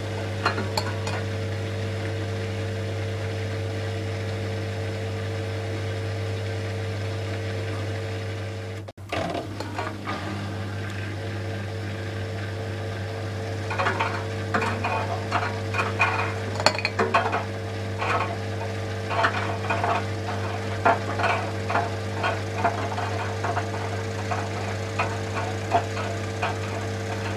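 Miele Softtronic W 435 Plus washing machine running with a steady hum, which cuts out for a moment about a third of the way in; from about halfway, irregular clicking and clattering is heard over the hum.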